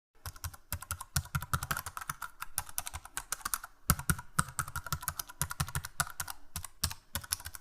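Rapid, irregular typing on a computer keyboard: a dense run of key clicks.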